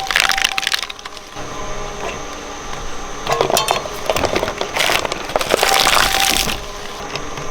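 Shredder crunching and cracking through an object in loud bursts: one at the start, a short one about three and a half seconds in, and a longer one near the end, with a steady machine hum between them.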